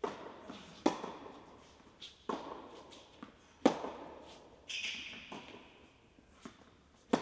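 Tennis balls struck by racquets in a baseline rally, each sharp pock followed by echo in the large indoor hall, with softer ball bounces between the hits. A brief hiss comes about five seconds in.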